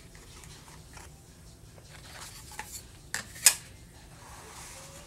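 Small hard pieces of jewelry clinking and being handled: a few sharp clicks and taps, the loudest about three and a half seconds in.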